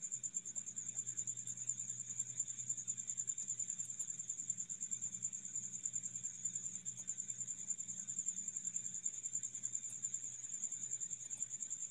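Quiet, steady high-pitched insect trill, like a cricket's, with a low electrical hum underneath.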